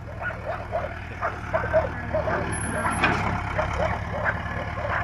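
John Deere 310G backhoe loader's diesel engine running steadily as the machine drives slowly, with short high chirps or squeaks coming irregularly over the engine hum.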